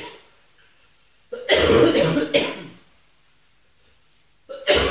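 A person coughing and clearing their throat: a loud double cough about a second and a half in, and another cough near the end.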